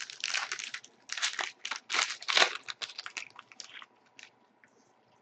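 Trading card pack wrapper being torn open and crinkled, a quick run of crisp crackles and rips that dies down after about four seconds.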